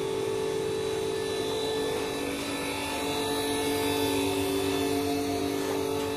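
Steady machine hum holding several even tones, with no change in pitch or level.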